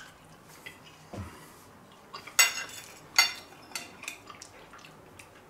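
Metal cutlery clinking on a plate during eating: two sharp clinks in the middle, with a few lighter taps and a soft knock around them.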